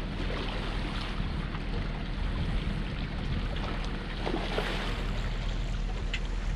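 Steady outdoor noise of wind on the microphone and river water lapping against shoreline rocks, over a steady low hum.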